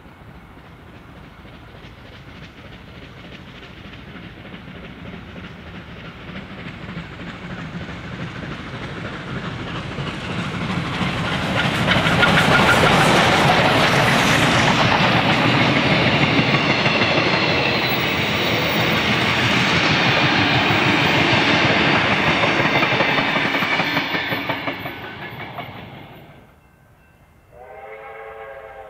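Two steam locomotives, an R class Hudson and a K class Consolidation, working hard up a grade with a train of carriages. Their exhaust grows steadily louder as they approach and pass close by, followed by the carriages rolling past with wheels clicking over rail joints. Near the end a steam whistle sounds in the distance.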